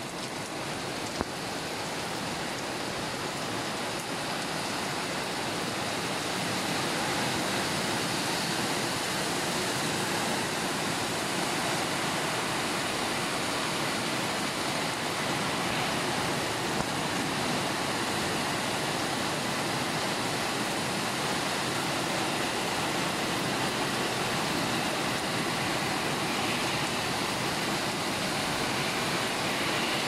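Heavy driving rain from a tropical storm with strong wind, a steady dense hiss that swells over the first several seconds and then holds.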